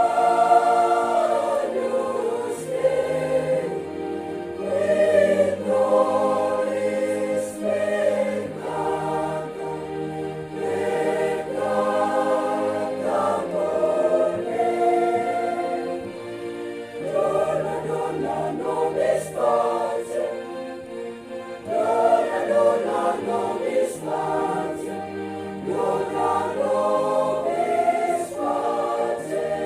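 Church choir singing a sacred song in several voices at once, in long held phrases with a couple of brief pauses.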